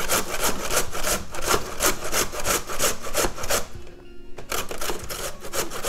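Peeled raw beetroot being grated by hand on the coarse side of a stainless-steel box grater. It makes a rasping scrape at about three strokes a second, pauses briefly a little under four seconds in, then the strokes resume.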